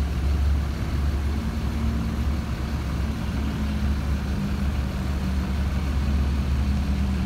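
Diesel engine of a Sumber Jaya Trans intercity coach running with a steady low rumble as the bus moves off slowly.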